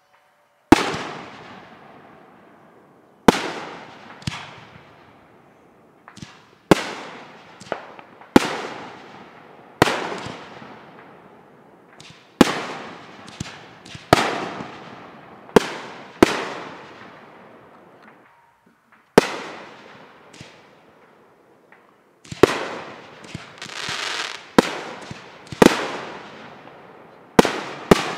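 Aerial firework shells bursting one after another, a sharp bang every second or two, each trailing off over a second or two. A quicker run of smaller pops comes about two-thirds of the way through.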